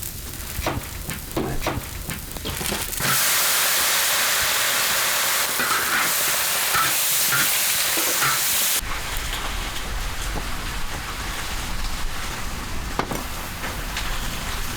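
Cooking sounds: scattered clicks and clatter, then about three seconds in a loud, steady hiss that cuts off abruptly near nine seconds. A quieter hiss with a low rumble and occasional clicks follows.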